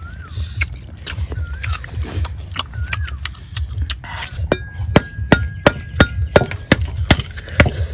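Repeated sharp clinks and taps of tableware, sparse at first, then louder and quicker, about two or three a second, in the second half.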